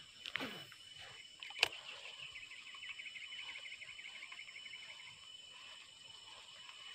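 Steady high-pitched insect drone over quiet open-air ambience. A sharp click comes about one and a half seconds in, and a fast rattling trill runs for a few seconds after it.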